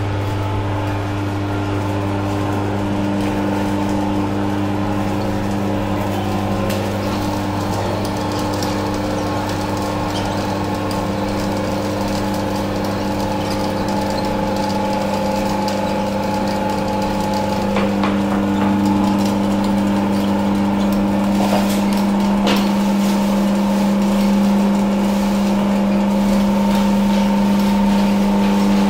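Electric oil expeller (screw oil press) running steadily, a constant motor hum whose tone shifts a little late on, with a few faint clicks about two-thirds of the way through.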